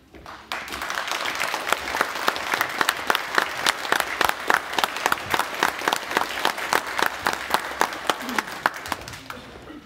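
Audience applauding: dense clapping that starts about half a second in and dies away near the end.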